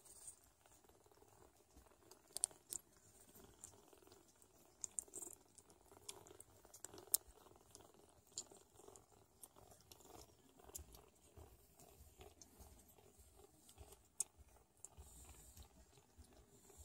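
Newborn Sphynx kittens suckling and their mother licking them: quiet, scattered wet smacking clicks, with soft rustling as the kittens move on the fleece blanket.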